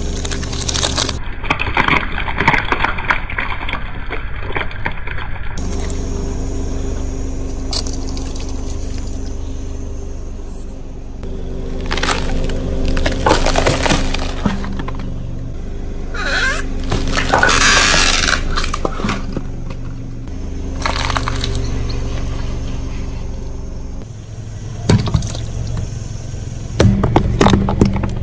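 A slow-rolling car with its engine running low and steady while its tyres crush things: repeated crunching, cracking and breaking, in several separate bouts with a few loud snaps near the end.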